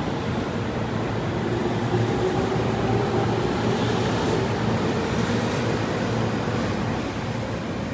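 Tobu 50090 series electric train running, a steady rumble of wheels and running gear with a faint motor whine that slowly shifts in pitch.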